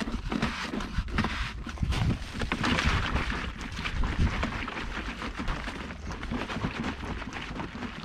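Hand-pump garden pressure sprayer being pumped up by its top handle to pressurise the tank: a fast run of plunger strokes and knocks with rushing air, busiest in the first half and easing off towards the end.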